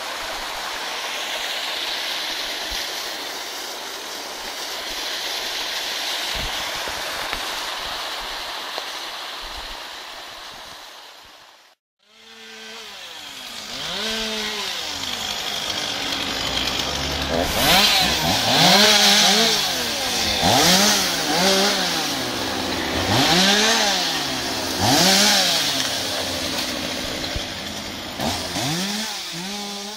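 Water from a small waterfall splashing down a snowy bank, an even rushing hiss. After a cut about twelve seconds in, a two-stroke chainsaw revs up and down over and over, its pitch rising and falling with each rev, louder in the second half.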